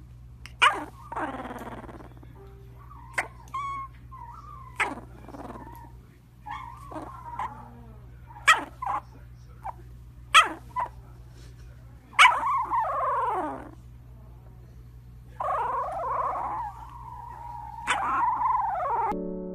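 A sleeping puppy makes short sharp yips and longer whines in its sleep. One whine about two-thirds of the way through falls in pitch, and a longer drawn-out whine comes near the end.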